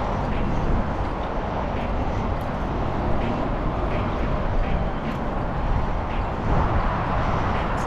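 Wind buffeting the microphone over the hiss of mountain bike tyres rolling on a wet road, a steady rumble with faint scattered ticks.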